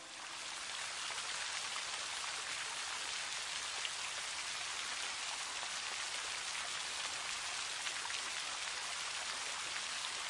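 Steady rain falling on water, a dense hiss of fine drops that fades in over the first second.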